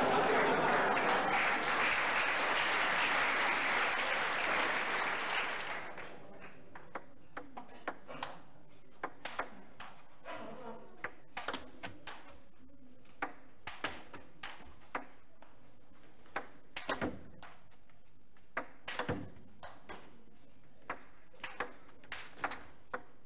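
Audience applause for about six seconds, then a long table tennis rally: the ball clicking sharply on the bats and the table at irregular intervals, often about a second apart.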